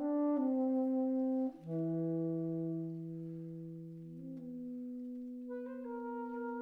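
Saxophone quartet (soprano, alto, tenor and baritone saxophones) playing soft, long held chords. A brief break comes about a second and a half in, and new notes enter near the end as the low note fades out.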